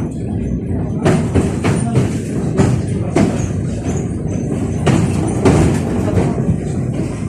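71-605A (KTM-5A) tram running along the line: a steady low rumble of wheels on rail, broken by irregular knocks and clatter from the wheels and running gear.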